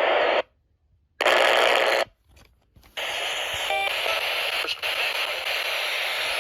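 Radio static hiss from a Midland ER310 emergency weather radio tuned to a NOAA Weather Radio broadcast, heard in a gap in the announcer's voice. The hiss cuts out abruptly twice, about half a second in and again about two seconds in, then comes back as a steady, slightly quieter hiss.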